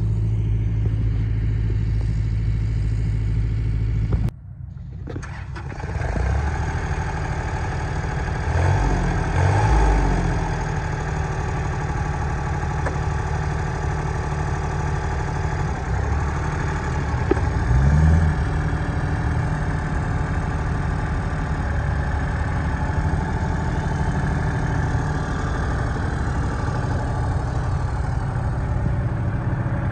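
Kubota L2900 tractor's three-cylinder diesel engine running steadily. The sound cuts out abruptly about four seconds in and builds back, then the engine speeds up twice, around nine and eighteen seconds in, before settling again.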